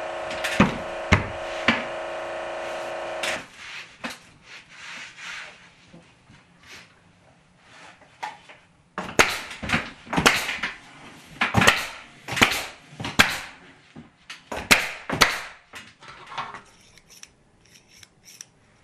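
Knocks on a plywood panel being fitted to a wall. A steady machine hum under the first few knocks cuts off about three seconds in; after some light taps comes a run of a dozen or so sharp knocks, often in close pairs, and a few faint small clicks near the end.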